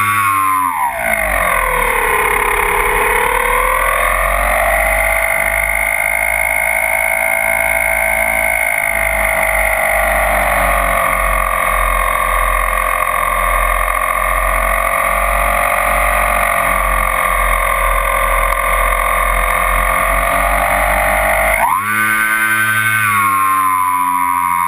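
Twin brushless electric motors and propellers of a Multiplex Twinstar RC plane, heard from on board. The whine drops steeply in pitch about a second in as the throttle is eased back, then holds at a lower pitch with a low wind rumble underneath. Near the end it jumps back up as the throttle is opened again.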